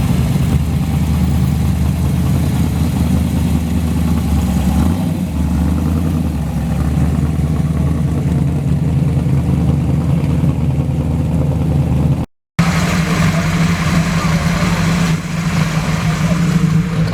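Classic car engines running at low speed, a steady low drone. About twelve seconds in, the sound cuts out for a moment and a different engine carries on.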